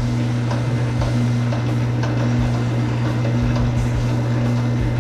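Electric wire stripping machine running with a steady mains-motor hum, and uneven low thumps from the wire being fed through it.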